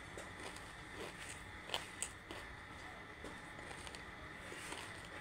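Close-miked chewing of crunchy banslochan (tabasheer, bamboo silica) with the mouth closed: scattered faint crunches and clicks, with two sharper cracks about two seconds in.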